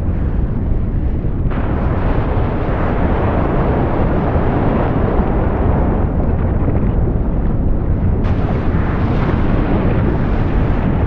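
Loud, steady low rumble of an erupting volcano. The sound changes abruptly about a second and a half in and again near eight seconds.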